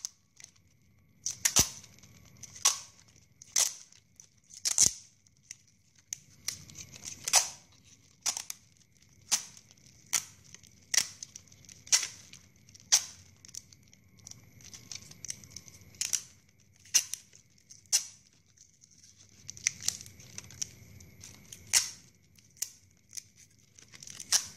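Clear adhesive tape pulled off its roll in short, sharp peels, about one a second, as it is wound around the trunk of a straw craft. A faint rustle of handling runs between the peels.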